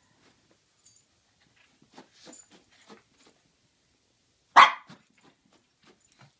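A shih tzu gives one short, loud bark about four and a half seconds in, after a few seconds of quieter scuffling as the dogs play on the blanket.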